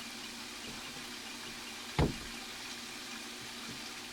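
A single sharp knock about two seconds in, from PVC drain pipe and fittings being handled and pushed together, over a steady background hiss.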